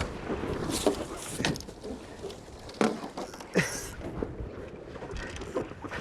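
Tornado catamaran going through a tack in strong wind: wind and water noise with a handful of sharp knocks and snaps from the boat's rig and fittings.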